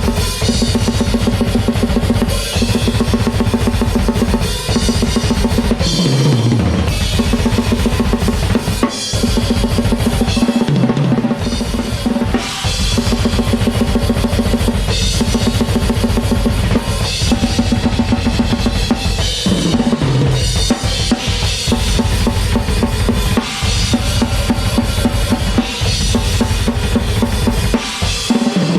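Acoustic drum kit played at blast-beat speed: fast, relentless bass drum and snare strokes with cymbals over them. It is broken several times by quick fills that fall in pitch across the toms.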